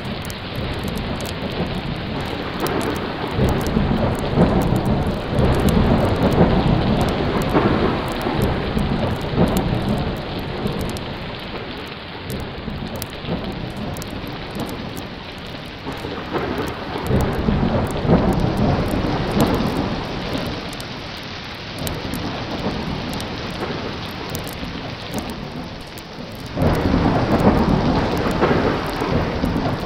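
Thunderstorm sound effect: steady heavy rain with rolling thunder that swells a few seconds in and again past the middle, and a rumble that comes in suddenly near the end.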